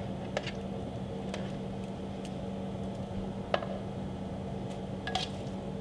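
A few light, scattered clicks and taps from hands working marinade into salmon fillets and shifting a metal baking tray, over a steady low electrical hum.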